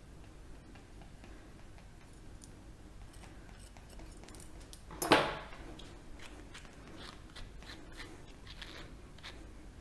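Grooming scissors snipping a small mat out of a dog's leg fur, in quiet little cuts, with one louder brief sound about five seconds in. In the second half, a slicker brush rakes through the fur in a run of short, scratchy strokes.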